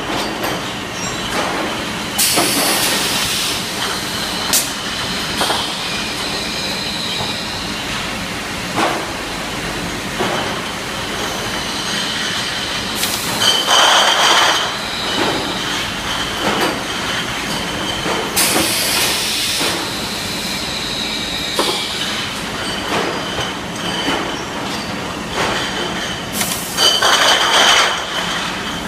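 A Swiss PAC bottle washing machine (1991, 6,000 bottles an hour) running: a continuous mechanical clatter with a faint steady whine. About four loud hissing surges, each a second or two long, come every several seconds.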